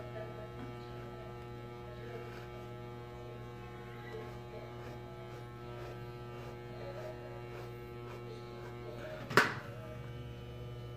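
Blue handheld electric beard trimmer running with a steady buzz as it is worked through a long beard. About nine seconds in there is one sharp loud knock.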